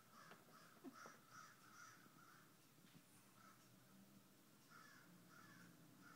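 Crows cawing, faint: a quick run of caws over the first two seconds, a pause, then a few more caws near the end.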